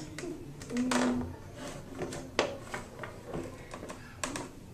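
Handling noise: scattered light clicks, taps and rubbing of small objects being moved about, with a sharp click a little past the middle and a short low hum about a second in.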